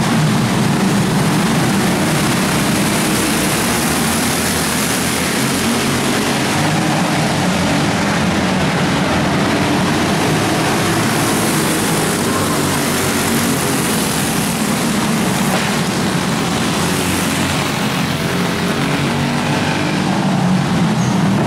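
A pack of racing karts' small engines running together around an indoor track, a steady, dense drone with no let-up.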